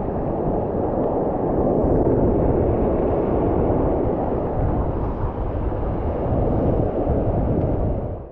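Loud, steady rumble of wind buffeting the microphone over surf washing across a shallow reef, cutting off suddenly at the end.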